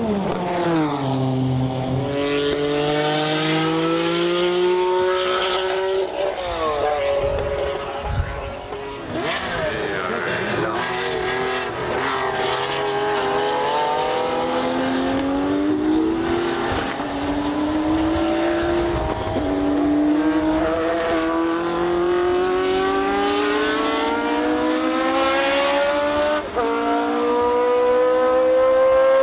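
Turbocharged race car engine under hard acceleration. The revs fall sharply at the start, then climb through the gears, with a sudden drop in pitch at each of several upshifts.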